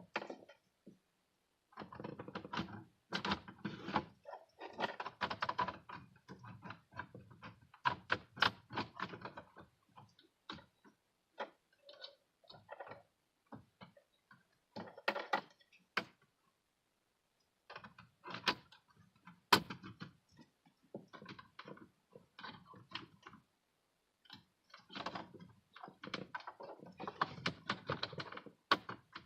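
Plastic clicks, taps and rustling from handling a car's instrument cluster and dashboard trim as the parts are fitted back in place, coming in irregular bursts with a couple of short silent gaps.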